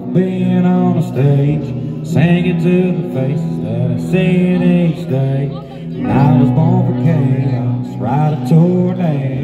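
Live country-rock music: a male singer sings a melody over a band with guitar and bass.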